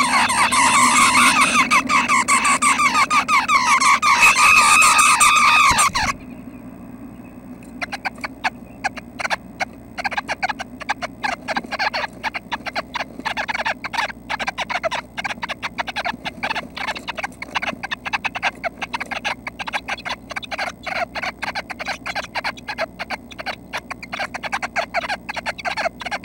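Red-breasted nuthatch nestlings begging with loud, rapid, buzzy calls during an adult's feeding visit, the calls stopping abruptly about six seconds in. Then many quieter, irregular clicks and scratches inside the nest cavity.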